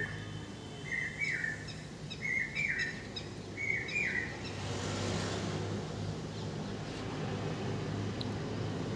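Pet parrot giving three short, squawky chirps about a second apart. About halfway through, a steady hiss sets in.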